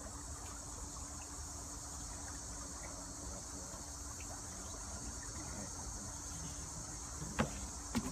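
Steady high-pitched buzz of insects, with two short sharp clicks near the end.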